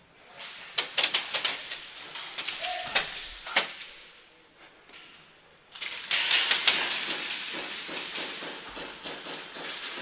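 Airsoft guns firing: scattered sharp cracks in the first few seconds, then from about six seconds a louder, denser run of rapid shots over a rustling noise.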